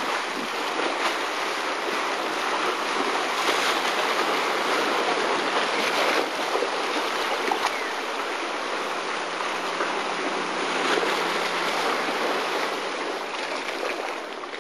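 Yellowstone mud-volcano thermal feature churning and boiling: a steady rushing of bubbling water and steam, with many small pops and splashes.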